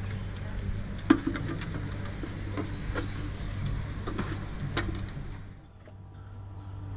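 Scattered light knocks and clinks, the loudest about a second in, as brass butter lamps are handled and set into a metal-and-glass lamp house, over a steady low hum.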